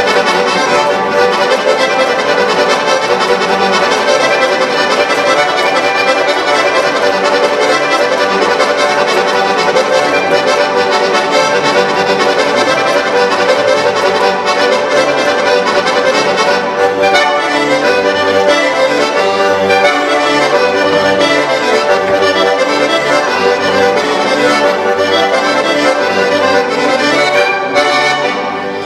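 Dino Baffetti organetto (diatonic button accordion) played solo on a lively traditional tune, the melody over a steady pulsing bass-and-chord accompaniment from the left-hand buttons. The playing dips in level just before the end.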